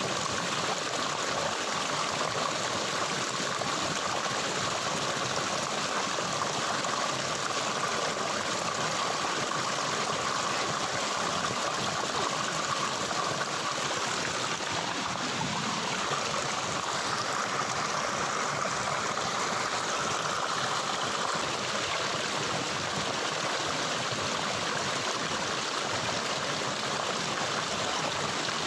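Running water flowing steadily, an even, unbroken sound.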